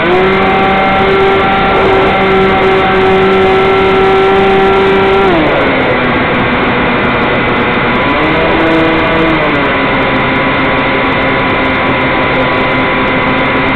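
HobbyZone Stratocam's small electric motor and propeller whining, heard through the plane's onboard camera with wind rushing past. The whine holds steady, drops in pitch about five seconds in as the throttle comes back, rises briefly near the eight-second mark, and then settles at the lower pitch.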